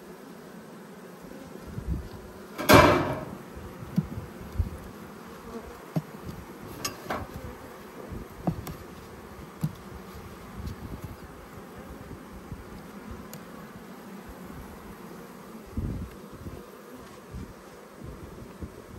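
Honeybees buzzing steadily over an open hive, with scattered wooden knocks and clicks as hive frames are handled. The loudest is a brief clatter about three seconds in.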